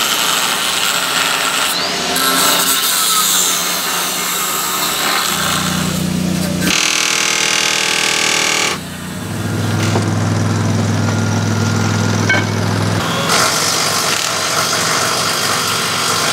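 Cordless impact wrench running in a series of bursts as bolts are spun off a Ford Bronco's suspension and axles during teardown. Two steady low hums come in between the bursts.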